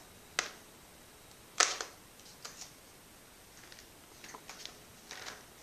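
Cardboard advent calendar door being pushed open and the chocolate inside worked loose: a series of sharp clicks and crackles of card, the loudest about a second and a half in.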